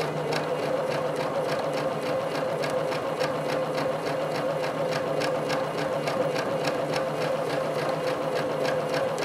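Domestic sewing machine running steadily during free-motion quilting, the needle stitching at an even, rapid rate over a constant motor hum.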